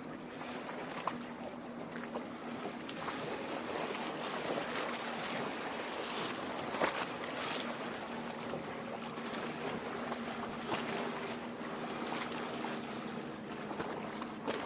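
Lake water lapping and splashing against the shore, a steady wash with small, sharper splashes; the loudest comes about seven seconds in.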